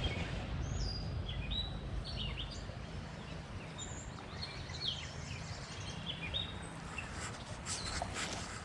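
Songbirds chirping, many short quick calls that slide up and down in pitch, over a steady low rumble; a few brief rustling clicks near the end.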